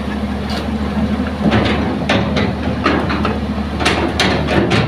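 Hitachi hydraulic excavator's diesel engine running steadily while its steel bucket digs into sandy soil and stones, with irregular sharp knocks and clatters of rock against the bucket.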